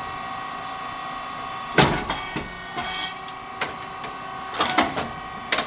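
Puffed rice cake machine running with a steady hum. A sharp pop comes about two seconds in as the heated moulds open and release a puffed rice cake, followed by a string of lighter mechanical clacks and knocks.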